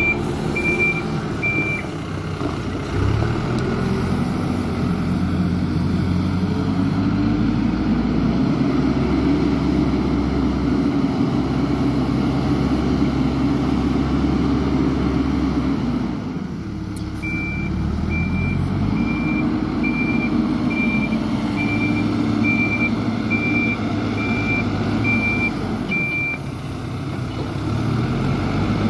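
A heavy vehicle's engine running, with a backup alarm beeping about once a second at the start and again for about nine seconds in the second half.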